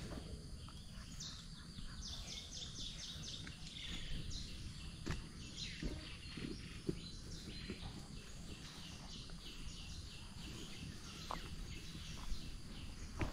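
Outdoor ambience with repeated trains of short, high chirps, several a second, over a low rumble, with a few light knocks.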